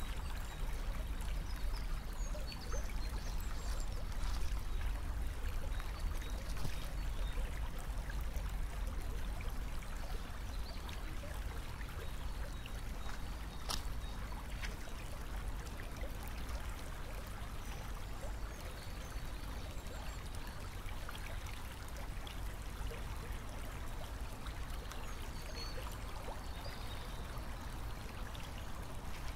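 Steady outdoor ambience: an even rushing, trickling noise like running water over a deep rumble. There is one sharp click about 14 seconds in and a few faint high chirps near the start and again near the end.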